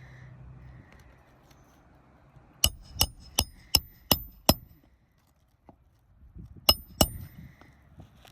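Hammer striking roofing nails into a new 3-tab asphalt shingle: six quick ringing blows a little under half a second apart starting about two and a half seconds in, then two more near the end.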